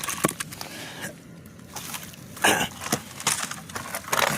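Thin lake ice cracking and crunching in a few irregular strokes, with some water sloshing, as a block of wood frozen into it is worked loose. The loudest crack comes about two and a half seconds in.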